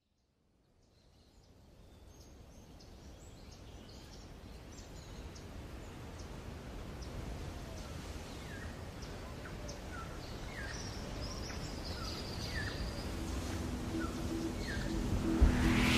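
Birds chirping over a steady outdoor hiss that fades in slowly, growing louder through the whole stretch.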